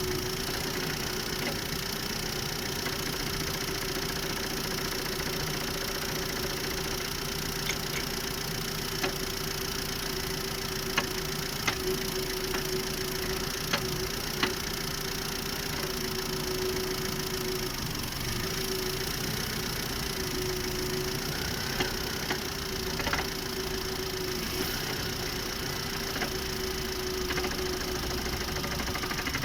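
Volkswagen Polo's 1.6-litre engine running steadily, heard from the engine bay, with a series of short sharp knocks from the drivetrain, bunched in the first half and a few more later. The knocks come as the manual clutch is released, which the owner reports as a knock and grinding on a car only 1200 km old.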